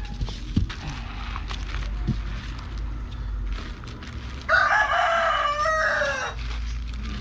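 A rooster crows once, one call of about two seconds starting about four and a half seconds in and dropping in pitch at the end. Before it, light rustling and clicks from a plastic mailer bag being handled.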